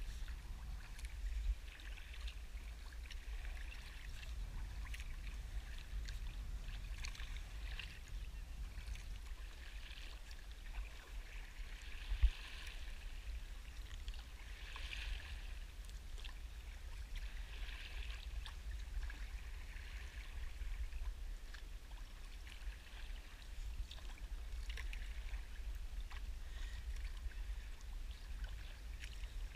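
Kayak paddle strokes, the blades dipping and splashing in the water every two to three seconds, over a steady low rumble of wind on the microphone. One sharp knock about twelve seconds in.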